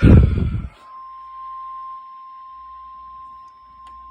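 A steady, unbroken high beep tone of an emergency alert runs throughout. In the first second it is covered by a brief, loud, rumbling thump.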